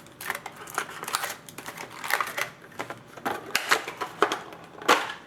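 Trading card packs and cards being handled: irregular crinkling and clicking of foil wrappers and card stock, with a sharper crackle near the end.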